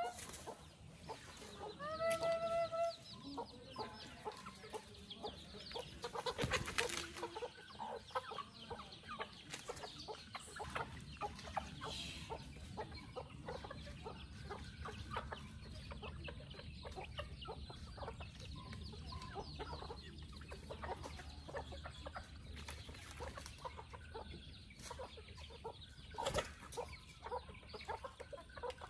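A flock of domestic chickens clucking as they gather and peck, with many short clucks scattered throughout. One drawn-out call sounds about two seconds in.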